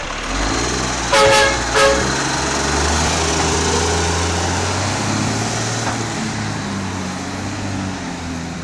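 Iveco Acco garbage truck's horn tooting twice about a second in, over the steady running of its engine.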